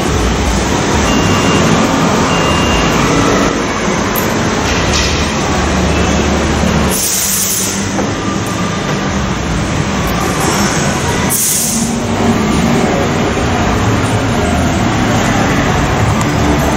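Steady, loud mechanical rumble and noise, with two short hissing bursts, one about seven seconds in and one about eleven and a half seconds in.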